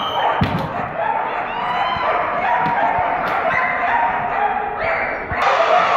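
Dogs barking and yipping excitedly at a flyball race, mixed with people shouting, all echoing in a large hall. A single thump comes about half a second in.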